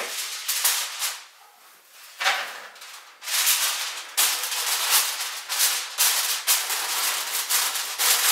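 Reynolds Wrap aluminum foil crinkling and rustling as a sheet is laid over a glass baking dish and pressed and crimped down around its rim to seal it. A brief lull comes about a second in, then steady crinkling resumes.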